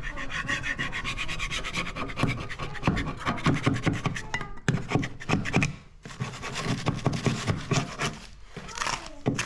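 Sandpaper being rubbed by hand on wood in quick back-and-forth strokes, with a short pause about six seconds in.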